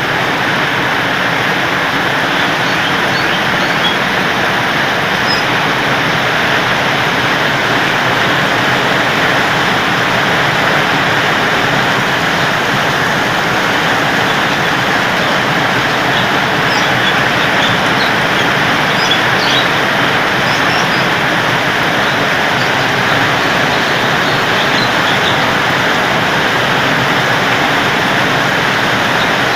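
Heavy rain pouring down in a steady, even rush, the first downpour of the rainy season.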